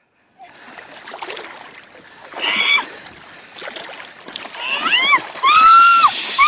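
A woman shrieking in fright at a hooked fish splashing in the water: short rising cries from about four and a half seconds in, then long high shrieks near the end, over a hiss of moving and splashing water.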